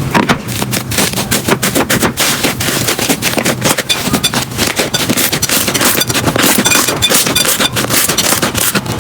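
Slime being pressed and squeezed by hand, giving a dense, continuous crackling of many tiny pops and clicks.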